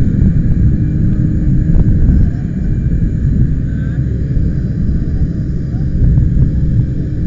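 Loud, steady low rumble with a faint constant hum, and faint voices in the background.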